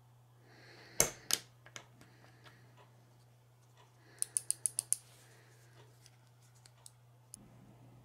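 Sharp small plastic clicks as parts are snapped onto the switches of a snowblower chute joystick's circuit board. Two loud clicks come about a second in, then a quick run of six clicks past the middle, with a few fainter ticks between.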